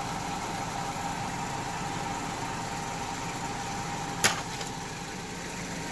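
Car engine running in gear, driving the jacked-up right front wheel of a 2010 Chevy Malibu as it spins off the ground. There is a steady hum with a thin steady whine, and one sharp click about four seconds in. The owner suspects the noise comes from a failing front wheel bearing.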